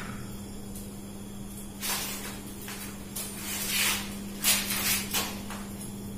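Three or four short rustling, scraping noises over a steady low hum.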